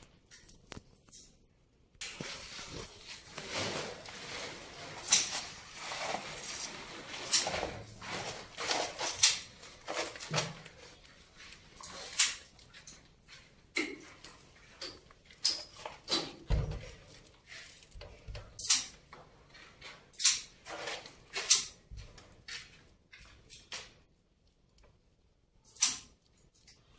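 Irregular sharp knocks and clicks, scattered unevenly, with a faint hiss between about two and eight seconds in.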